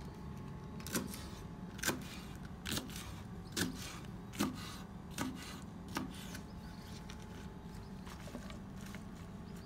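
Knife chopping spinach leaves on a wooden cutting board: seven even strokes a little under a second apart, stopping about six seconds in, over a faint steady hum.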